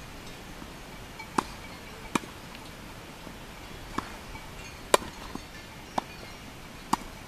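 Tennis balls being struck during a volley drill at the net: about seven sharp pops of ball on racket strings, roughly a second apart, the loudest about five seconds in.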